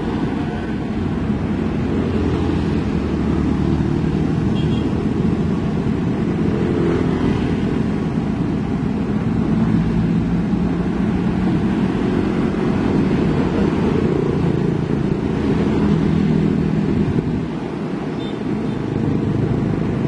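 Heavy diesel machinery running at a steady low rumble, its pitch drifting up and down, as a Komatsu PC78 excavator crawls down a self-loader truck's ramps, mixed with passing road traffic.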